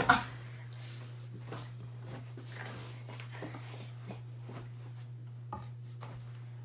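Office swivel chair being spun, with scattered faint knocks and rustles as hands and feet push off the furniture, over a steady low hum.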